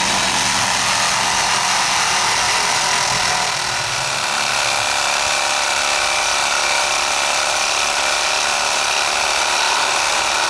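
Reciprocating saw running steadily as it cuts through a crape myrtle branch.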